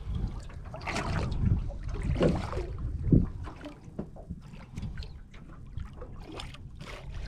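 Water lapping and splashing against the side of a small boat, with wind buffeting the microphone. The louder swashes come about a second and about three seconds in.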